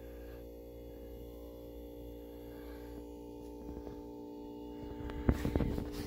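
Refrigerator compressor running with a steady low hum while it charges the air tank. About five seconds in, a short burst of rustling and knocks.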